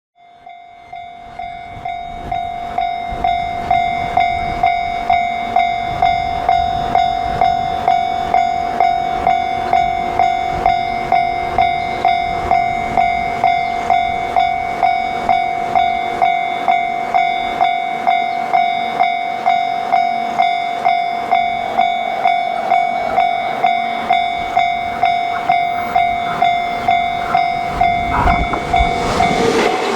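Japanese railroad crossing warning bell ringing "kan-kan" in a steady rhythm of about two strikes a second, fading in over the first few seconds. Near the end a rumble rises as a train approaches the crossing.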